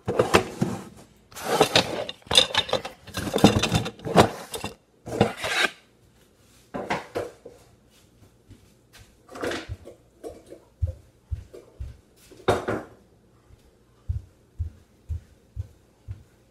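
Kitchen clatter: pots, pans and utensils scraping and knocking in a rapid cluster over the first few seconds, then a few single knocks. These are followed by a string of soft low thumps, about two a second, near the end.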